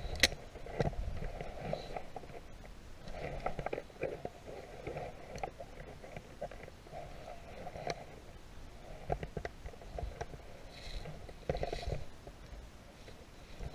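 Footsteps crunching irregularly through dry fallen leaves and grass, with clothing and gear rubbing against the body-worn camera and a sharp knock just after the start.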